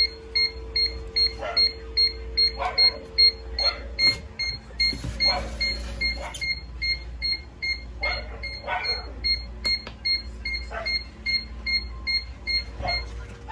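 An electronic beeper on an egg incubator's digital controller is beeping fast and evenly, about three short high beeps a second, and it stops near the end. Short, irregular creaks are scattered over it.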